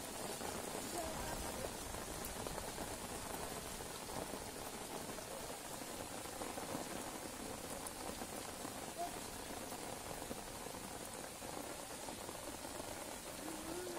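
Steady rain falling on shallow standing floodwater, an even, continuous sound with no break.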